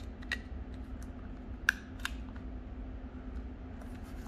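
A few short, sharp clicks of a Nokia 6680 mobile phone being handled, the loudest about a second and a half in, over a low steady hum.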